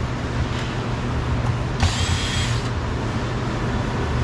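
Cordless drill or driver running in one short burst about two seconds in, a brief motor whine as it backs out a Phillips screw holding the door trim panel. A steady low hum runs underneath.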